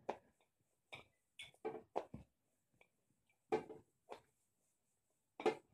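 Hands patting and pressing a coiled ball of missi roti dough flat on a plastic chopping board: about eight short, irregular pats.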